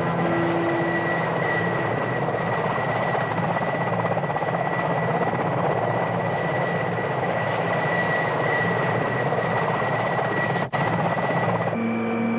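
Mil Mi-8-type transport helicopter running on the ground, a steady dense engine and rotor noise with a high turbine whine. Near the end the sound changes to a steadier, lower hum heard from inside the cabin.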